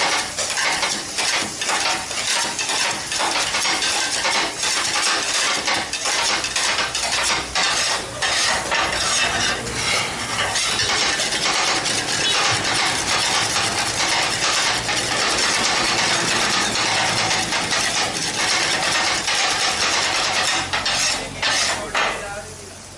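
Kottu roti being chopped: two metal blades clanging rapidly and without a break on a flat iron griddle as the roti and chicken are cut up. The fast, loud clatter stops near the end.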